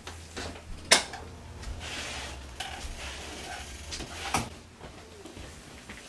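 Two sharp cracks during a chiropractic adjustment of the lower back, the first about a second in and much the louder, the second about three and a half seconds later.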